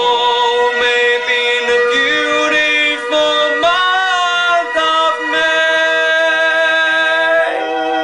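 A man singing long held notes, with a swooping high note about halfway through and other sustained notes sounding beneath his voice.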